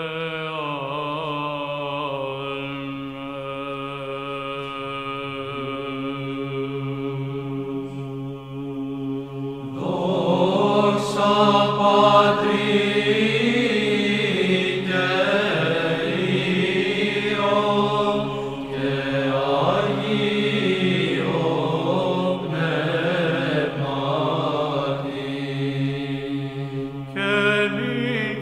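Chanting voices: a long held note with a drone for about the first ten seconds, then a wavering melodic line sung over the steady drone, typical of Byzantine chant.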